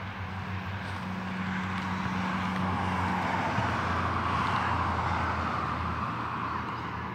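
A car passing on a nearby road: tyre and engine noise swells to its loudest about halfway through, then slowly fades, over a steady low hum.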